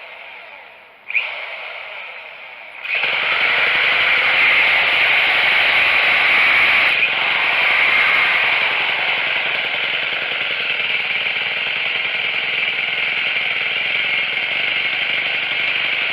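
Troy-Bilt string trimmer engine being started with a 12-volt drill turning the JumpStart bit: a couple of short sharp bursts, then about three seconds in the engine catches and runs steadily and loudly.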